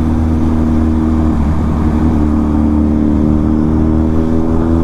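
Yamaha sport motorcycle engine running under way at about 50 km/h, its note slowly rising from about two seconds in as the bike picks up speed, over a steady low rumble of wind and road.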